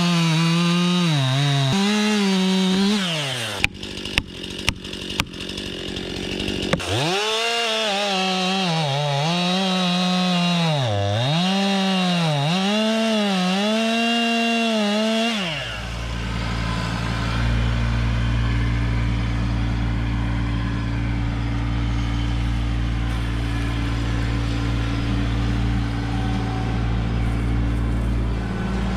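Two-stroke STIHL MS 261 chainsaw cutting wood at full throttle, its pitch dipping again and again as the chain bites, dropping off after about three seconds, with a few sharp clicks in the lull before it revs up and cuts again. About halfway through the saw stops and a steady low engine drone takes over, the Kubota LX2610 compact tractor's diesel running.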